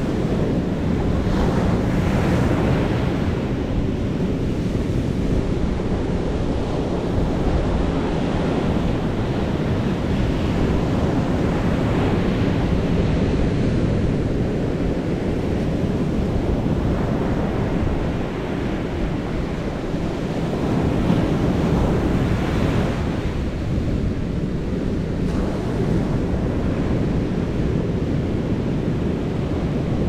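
Ocean surf breaking and washing up a sandy beach: a continuous low rumble of waves, with the hiss of foam swelling and fading every several seconds as each wash runs up the sand.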